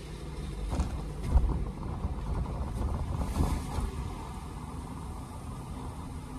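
A car driving on a wet, slushy street, heard from inside the cabin: a steady low rumble of tyre and engine noise. A short thump comes about a second and a half in, and a brief swishing hiss about three and a half seconds in.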